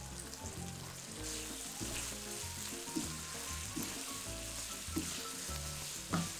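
Thick sambal sauce sizzling gently in a wok on low heat while chicken pieces are tossed through it with a wooden spatula. Soft background music plays underneath.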